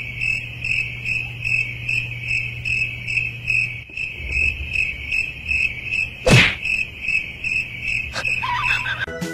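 Cricket chirping in a steady, rapid pulsing trill, about four to five pulses a second. There is a single thump about six seconds in.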